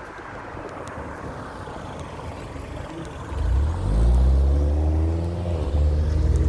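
An engine close by: a rising rush of noise, then from about three seconds in a loud low engine drone whose pitch climbs, as if accelerating, before holding steady.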